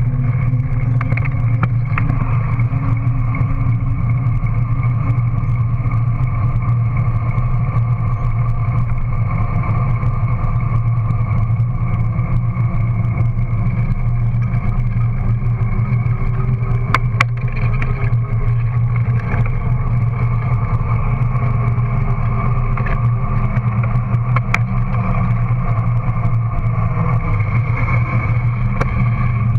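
Steady droning hum of a Scott dual-suspension bike's rear tyre rolling fast on asphalt, close to the rear-mounted microphone. A couple of sharp knocks cut in partway through.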